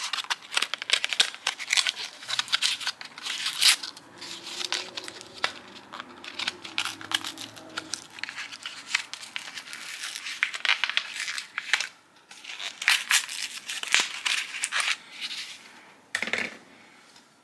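Plastic packaging crinkling and tearing as it is picked open by hand, in dense, irregular crackles close to the microphone, with short pauses, stopping near the end.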